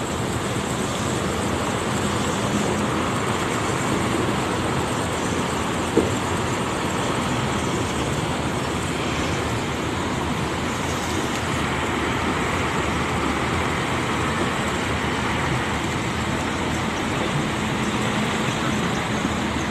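Diesel engine of a large intercity coach bus running as it rolls slowly across the terminal yard, a steady drone blended with the terminal's traffic noise. There is a single sharp knock about six seconds in.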